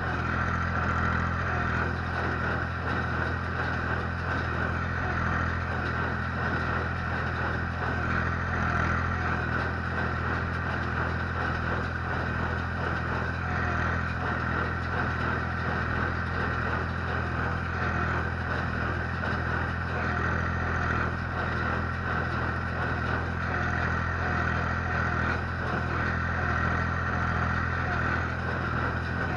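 Ursus C-360-3P tractor's three-cylinder diesel engine running steadily under load while powering a small square baler picking up wheat straw.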